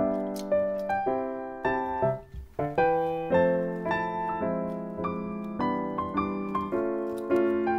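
Background piano music: a gentle melody over chords, each note struck and fading, with a short break about two seconds in.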